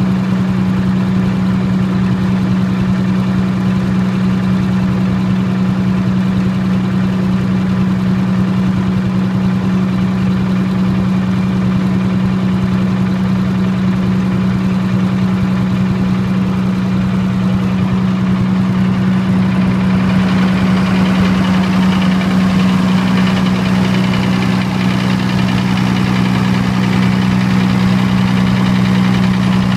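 Military diesel generator set's engine running steadily at constant speed, with a strong low hum. About two-thirds of the way through it gets slightly louder and harsher as the engine itself is heard more closely.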